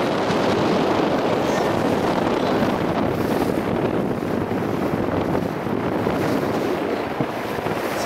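A boat under way at sea: a steady rush of water along the hull mixed with wind buffeting the microphone.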